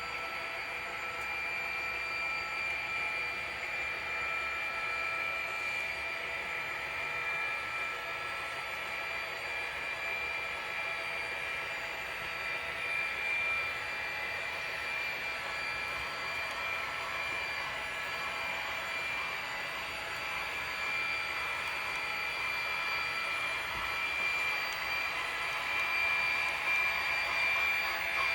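HO scale model diesel locomotives running in a consist along the layout track, making a steady electric whine with several fixed tones, a little louder in the last few seconds.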